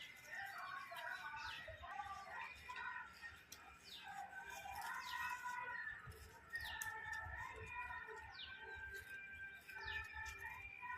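Birds chirping and calling: many short whistled notes overlapping, with repeated quick downward-sweeping chirps.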